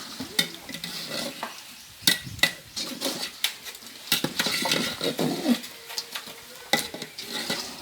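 Metal utensils clanking and scraping against a cooking pot in a series of irregular knocks, with stirring and a faint sizzle underneath.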